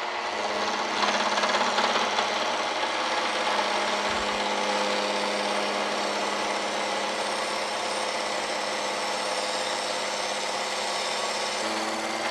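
Milling machine running with its face mill spinning: a steady mechanical whir with a constant hum. Near the end the tone changes as the cutter starts into the cast jaw blank for a 50-thousandths facing pass.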